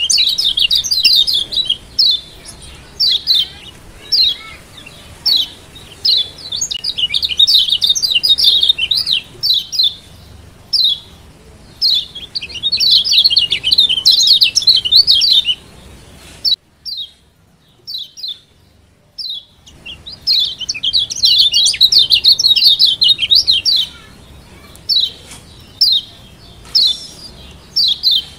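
Kecial kuning, the yellow white-eye of Lombok, giving its 'ciak' calls. Runs of rapid, high twittering lasting a few seconds alternate with single sharp chirps about a second apart, and there are a few seconds of only scattered chirps a little past the middle.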